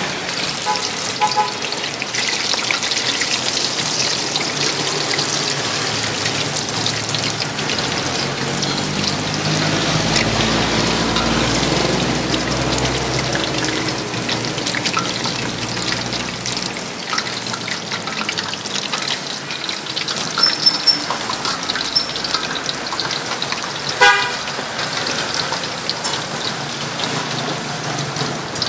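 Battered food deep-frying in a large pot of hot oil, a dense steady crackling sizzle. Street traffic rumbles underneath, swelling for several seconds midway, and a short horn toot sounds near the end.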